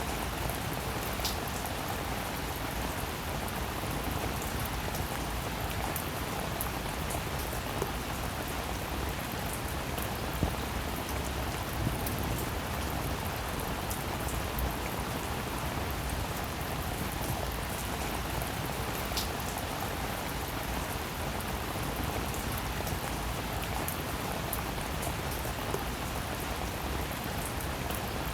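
Steady rainfall: an even, constant rush of rain with scattered sharper drops ticking now and then.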